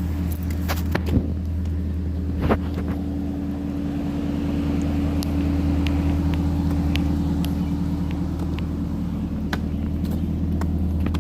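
Steady drone of a motor vehicle's engine running, with a few clicks and two short knocks in the first three seconds.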